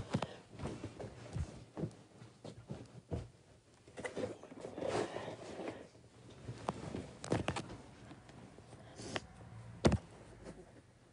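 Handling noise from a phone being moved about: scattered soft knocks, clicks and fabric rustling against a blanket, with one sharp knock near the end.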